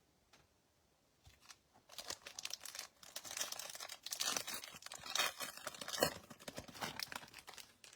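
A trading-card pack wrapper being torn open and crinkled, a dense crackling rustle that starts about two seconds in and runs on for several seconds.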